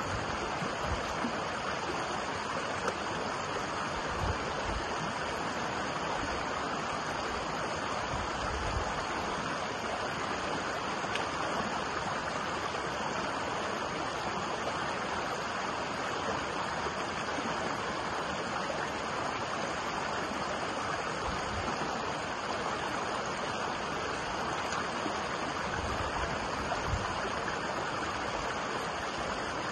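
Shallow moorland stream rushing and splashing over rocks in a steady, even rush of water. A few brief low rumbles of wind buffet the microphone.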